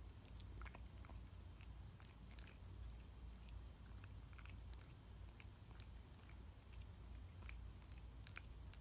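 A cat licking its paw: faint, irregular wet clicks of the tongue, a few a second, over a low steady hum.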